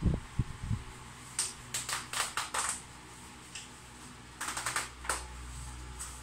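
Zipper on a child's winter suit being worked in short rasping pulls, with the suit's fabric rustling: two runs of quick strokes, the first about a second and a half in, the second around four and a half seconds in. A few dull low thumps in the first second.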